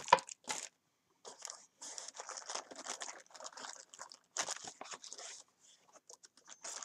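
Plastic packaging bags crinkling and rustling in irregular bursts as hands rummage through bagged accessories in a cardboard box, with a sharp knock right at the start.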